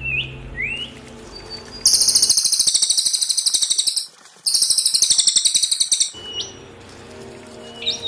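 Recorded small songbird song used as masteran: a couple of short rising chirps, then two loud, very fast high trills of about two seconds each with a brief break between, and a short rising whistle near the end. A faint low drone runs underneath.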